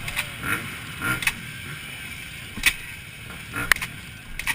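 A motorcycle that will not start: scattered short mechanical clicks and creaks, about seven, with no engine running. Its starter and battery were both bad.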